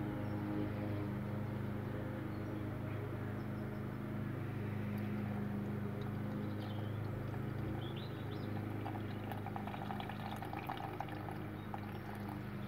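Gold-foil solution in poor man's aqua regia (hydrochloric acid and potassium nitrate) is poured from a glass beaker in a thin stream onto filter paper in a glass funnel. It trickles and splashes steadily, and the splashing grows busier in the last few seconds, over a steady low hum.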